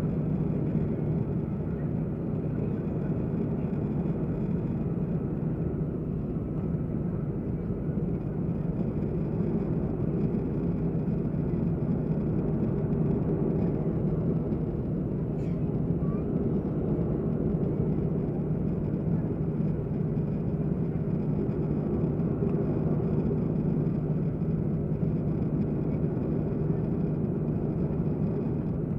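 Steady cabin drone of an Airbus A330-300 airliner in flight, engine and airflow noise with a constant low hum, heard from inside the passenger cabin.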